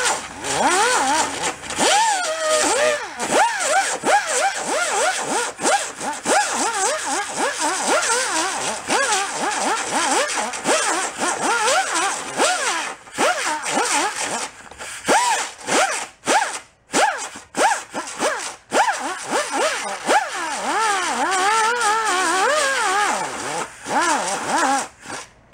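Right-angle die grinder with a small sanding disc scuffing fiberglass to give it tooth for a patch. Its pitch keeps rising and falling as the speed is controlled and the disc bites, and it is let off briefly several times in the second half.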